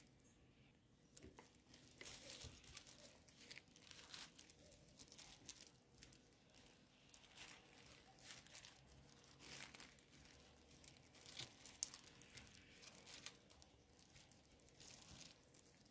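Lettuce leaves being torn by hand in a thin plastic glove: faint, crisp tearing and crinkling with irregular small crackles.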